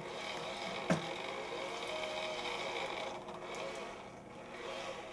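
Electric hand mixer running, its beaters churning thick cream cheese in a bowl, with a single knock about a second in.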